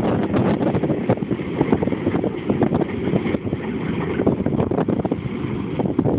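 Wind buffeting the microphone in irregular gusts over the low rumble of a freight train's covered hopper cars rolling away.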